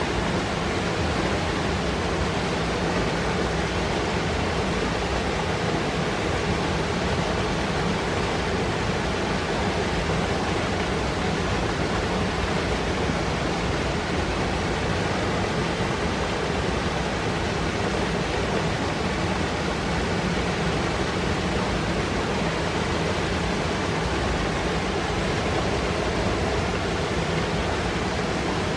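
Fast mountain river rushing and foaming over rocks: a steady, unbroken noise of white water.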